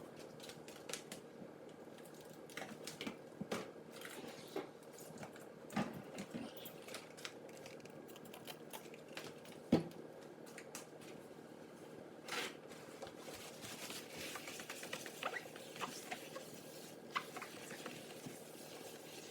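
Faint rubbing and small squeaks of a paper towel wiping oven door glass cleaned with glass cleaner, among scattered light clicks, with one sharper knock about ten seconds in.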